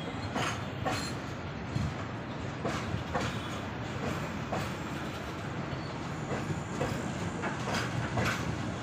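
Empty freight flat wagons rolling past, their wheels clacking over rail joints in an uneven run of sharp clicks over a steady rumble.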